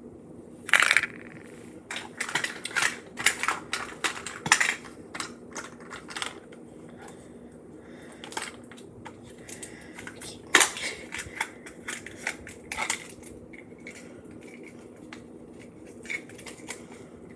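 Small plastic wrappers crinkling and crackling in bursts as miniature toys are unwrapped by hand, loudest about a second in and again about ten seconds in, over a steady low hum.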